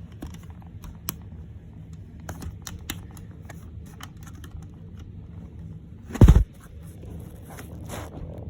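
Plastic clicks and taps from handling a smoke alarm and fitting its battery, with one heavy thump about six seconds in. The alarm's horn does not sound.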